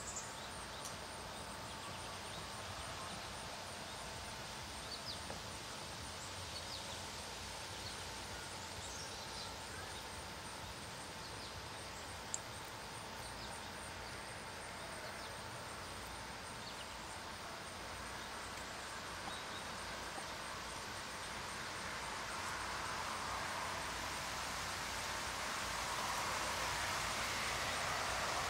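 Steady outdoor background noise with a faint steady whine, a few faint short high chirps in the first half and one sharp click near the middle. A broad rushing noise swells over the last few seconds.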